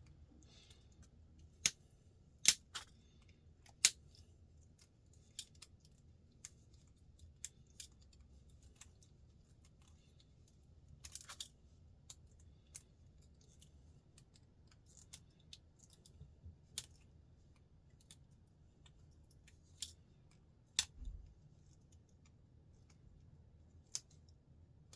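Pliers picking the gold-plated contact pins out of RJ45 plastic plugs softened in hot water: scattered sharp metallic clicks and ticks, a dozen or so spread irregularly, with a small cluster about eleven seconds in.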